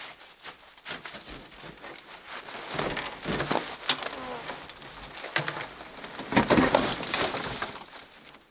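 Heavy packed snow crunching and scraping as it is pushed off an excavator's cab roof, along with the clambering of someone working up on the machine. It comes in irregular bursts, the loudest a little after six seconds in.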